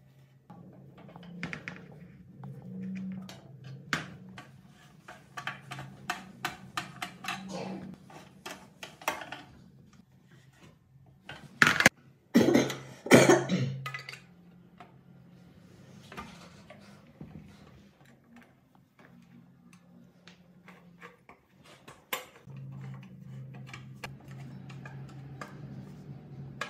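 Socket wrench ratcheting in quick runs of clicks as bolts are turned on a small four-stroke generator engine, with a few louder metal clanks from parts and tools being handled about halfway through. A low steady hum lies underneath.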